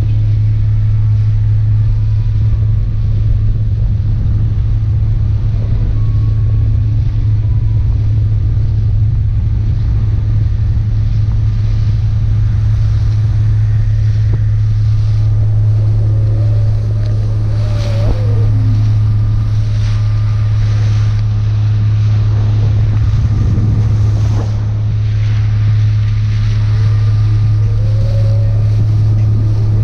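Motorboat under way at a steady cruise: a loud, unbroken low engine hum, with wind on the microphone and water rushing along the hull.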